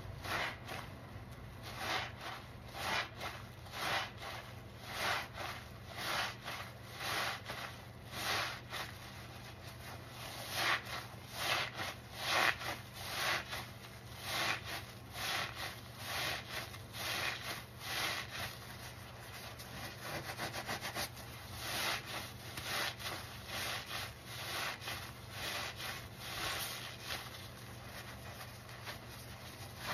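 Two foam-covered kitchen sponges squeezed over and over by hand in thick soap suds, a wet squelch with each squeeze, about one to two squeezes a second.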